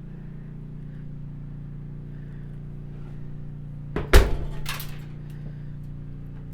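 A steady low hum, broken a little past halfway by two sharp clinking knocks about half a second apart, the first the louder.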